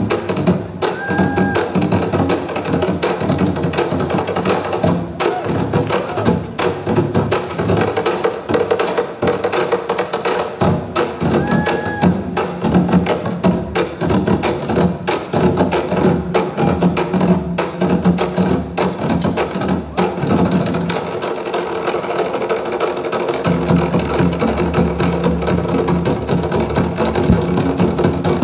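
Live drum ensemble beating large upright barrel drums with sticks in a fast, dense, driving rhythm. The deepest drum sound drops out for a couple of seconds about three-quarters of the way through, then comes back in.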